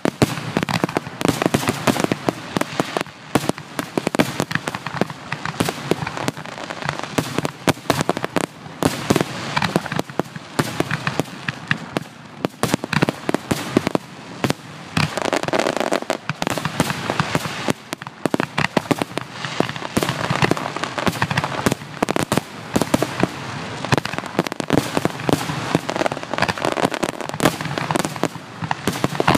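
Fireworks finale: aerial shells bursting in a rapid, unbroken barrage, many sharp bangs and crackles a second.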